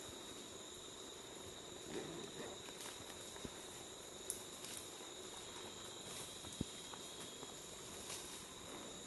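Forest insects trilling on two steady high-pitched tones, with a few faint clicks and a soft rustle.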